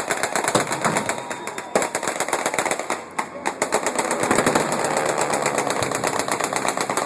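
Rapid, sustained machine-gun fire of blank rounds, dense overlapping bursts with a short break about three seconds in.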